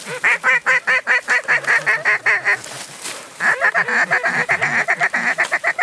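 Hand-blown duck call sounded in two long runs of rapid, evenly spaced quacks, about five or six a second, with a short break between them: calling to circling ducks.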